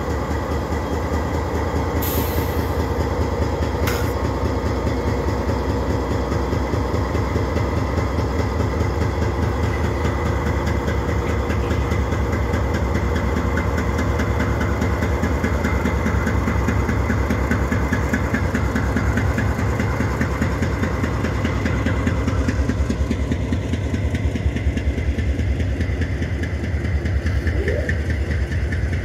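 Diesel locomotive engines running close by with a steady heavy throb, plus two short sharp clicks early on.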